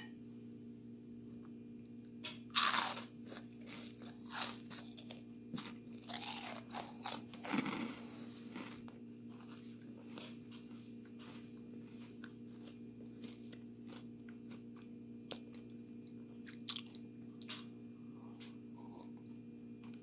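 A person biting into and chewing crisp oven-baked butter-and-sugar bread-crust sticks: a run of crunches over the first eight seconds or so, the loudest about two and a half seconds in, then only a few faint crunches.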